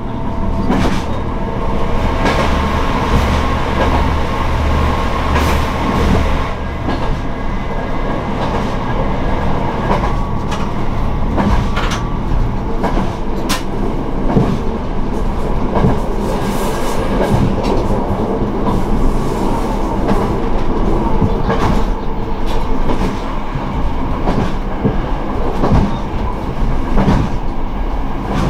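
Underfloor diesel engine of an express diesel railcar running steadily under way, with the wheels rumbling on the rails and occasional clacks over rail joints.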